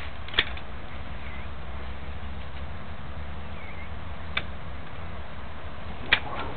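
Three short sharp clicks, a few seconds apart, as weighing scales and a weigh sling are handled, over a steady low rumble.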